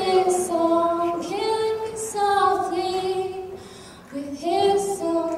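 A woman singing unaccompanied: long held and gliding notes, with a short break about four seconds in.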